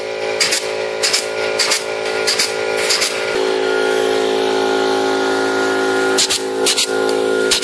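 Pneumatic C-ring (hog-ring) gun fastening wire cage panels, each shot a sharp snap about every half-second. A run of five shots, a pause of about three seconds, then three more, over a steady hum.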